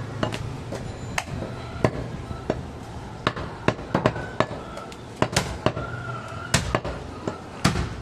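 Heavy cleaver chopping goat meat on a wooden log chopping block: sharp chops at uneven intervals, about three a second.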